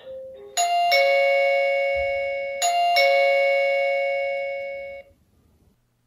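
LaView plug-in wireless doorbell chime playing its Ringtone 2: a two-note electronic ding-dong, high then low, sounded twice about two seconds apart, with the notes ringing on and dying away.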